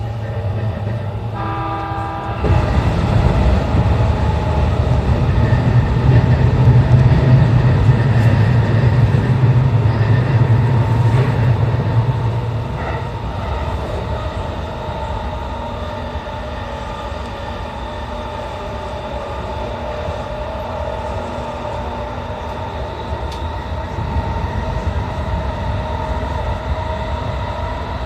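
E235-1000 series electric commuter train running on the line, heard from the front of the car: steady rail and running noise with motor whine. A short pitched tone sounds about a second in, then the running noise grows suddenly much louder and deeper for about ten seconds before settling back.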